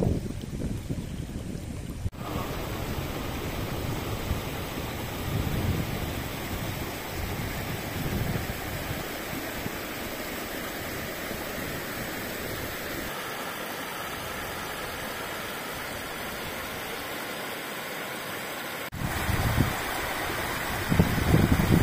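River water rushing over rock cascades: a steady, even hiss of flowing water. About two seconds in the sound changes abruptly, and near the end a louder, lower rush comes in.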